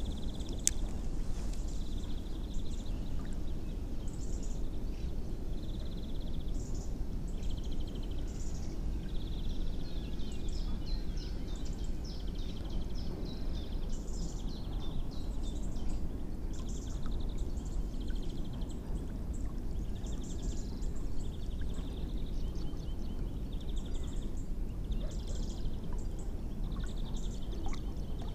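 Ultralight spinning reel cranked in short bursts to retrieve a lure, a fine rapid whirring tick every second or two, over steady wind and water noise.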